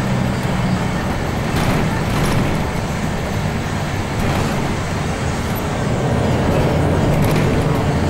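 Interior sound of a moving bus: the engine's steady hum and tyre and road noise, with a few brief rattles from the cabin.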